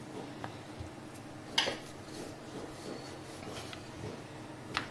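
Kitchen handling sounds while puri dough is portioned and rolled: a sharp knock about a second and a half in and another near the end, with a few fainter ticks, over a low steady hum.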